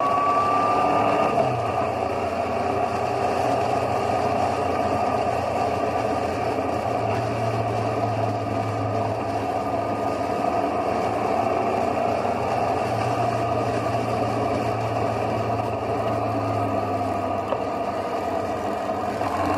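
Motorcycle engine running steadily at highway cruising speed, with wind and road noise on a camera mounted on the bike. The engine note shifts briefly in pitch about a second in.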